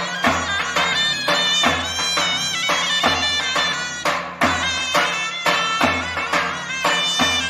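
A zurna, the Turkish double-reed shawm, plays a folk melody over a davul, the large double-headed bass drum, beating a steady rhythm: deep booms about once a second with lighter stick strokes in between.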